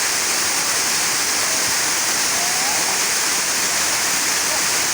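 Waterfall pouring down in a steady, loud rush of water noise.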